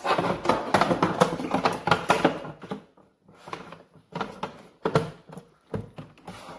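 Plastic side panel of a Bosch Tassimo T55 coffee maker clattering and scraping as it is slid onto the machine's body and snapped into place. Dense handling clicks for the first couple of seconds, then a few separate clicks.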